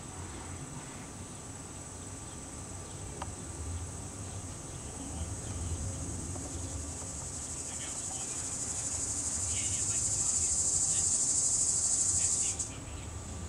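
Insects singing in a steady high-pitched drone. It swells louder from about eight seconds in and cuts off suddenly near the end, leaving a fainter drone.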